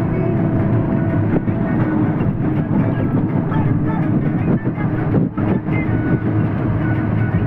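Loaded truck driving, its diesel engine running with a steady drone and the cab rattling and knocking over the road.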